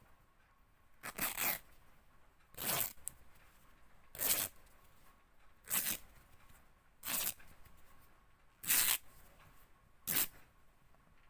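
Fabric being ripped in seven short separate tears, one about every second and a half.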